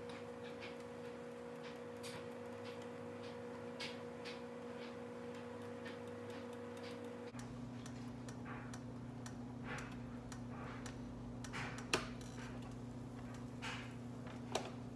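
Faint, irregular crackling and ticking of a buttered grilled cheese cooking in a panini press, over a steady electrical hum that shifts about halfway through. A sharper click comes about twelve seconds in, and another near the end.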